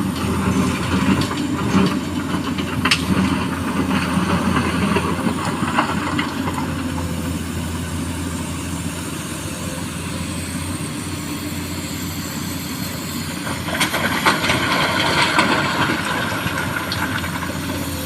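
Excavator's diesel engine running steadily. Twice there is a spell of loose rattling and clattering, typical of a bucketful of small stones being dumped into a dump truck's bed: once in the first few seconds and again near the end.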